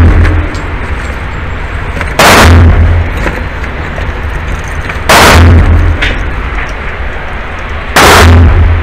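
Gunshots at an indoor range: three loud reports about three seconds apart, each with a short echoing tail.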